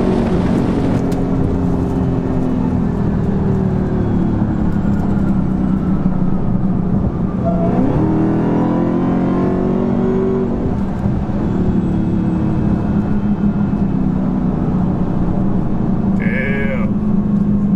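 Dodge Charger's engine and road noise heard from inside the cabin while driving, a steady drone whose pitch rises briefly about eight seconds in as the car picks up speed.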